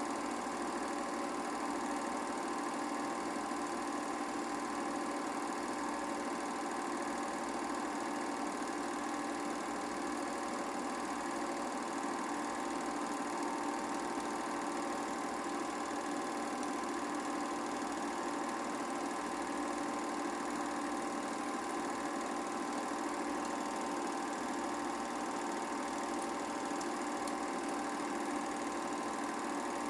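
Film projector running with a steady mechanical whir.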